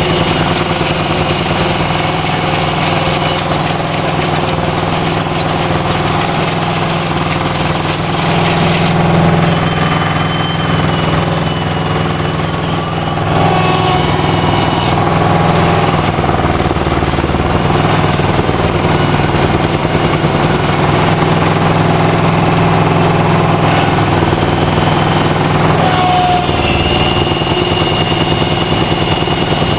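Aquatic weed harvester's engine running steadily while its pickup conveyor lifts floating hydrilla out of the water, with a thin high whine coming and going.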